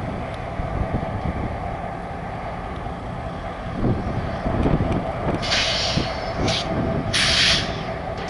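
Air hissing from a stopped freight train's air brake system in three short bursts in the second half, over a steady low rumble.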